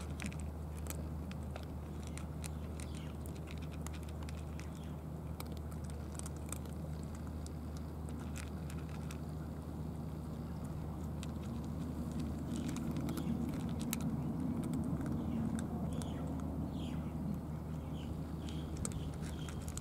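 Several cats crunching dry cat food: scattered sharp crunches and clicks, over a steady low hum that swells for a few seconds around the middle.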